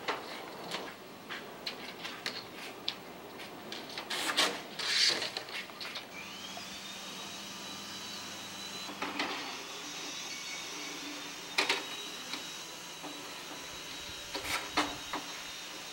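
Scattered knocks and clanks as solar panels are handled and fitted onto metal racking. From about six seconds in, a small motor runs with a steady high whine.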